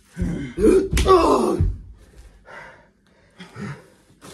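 A man's loud pained cry and gasp with a thump about a second in, as a body lands on a mattress during wrestling, followed by short gasping breaths.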